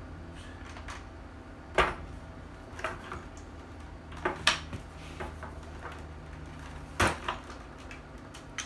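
Sharp knocks and clicks of a replica pulse rifle's parts being handled and set down on a wooden table: about eight separate knocks, the loudest about two seconds in and again near seven seconds in.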